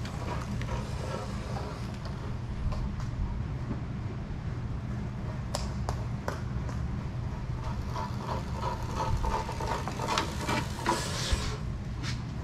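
MotoTec Fat Boy electric scooter being ridden: a steady low rumble with scattered light clicks and rattles.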